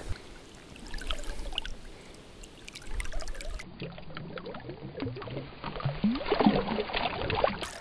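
Water splashing and sloshing as hands work a fish in a mesh landing net at the river's surface, in many small irregular splashes. For a few seconds in the middle the sound turns dull, with the camera dipping into the water.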